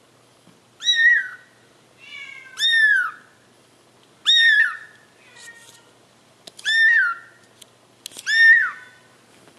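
A kitten mewing repeatedly: about six high, thin cries, each rising then falling and lasting about half a second, one every second or two.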